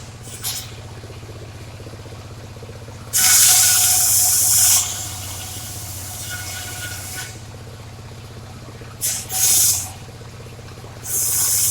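Circular saw running steadily, its blade cutting dry waru wood in loud hissing bursts: one of over a second about three seconds in, a short double one around nine seconds, and another starting near the end.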